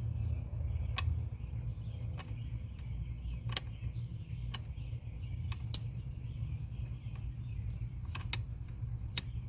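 Scattered light metallic clicks and taps, about ten of them at uneven intervals, from hands and tools working a nut onto a stud and fitting a wiring-harness clamp in a truck's engine bay, over a steady low rumble.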